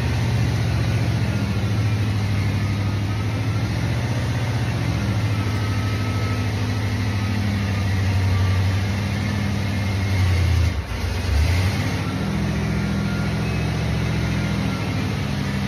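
Ford Bronco's engine running at low speed as the truck is driven slowly forward, a steady low engine note. It surges briefly and dips about eleven seconds in.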